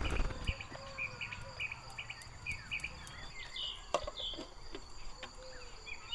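Outdoor rural ambience: a steady high drone of insects, with birds chirping in quick repeated short notes. A brief burst of handling noise comes right at the start, and a sharp click about four seconds in.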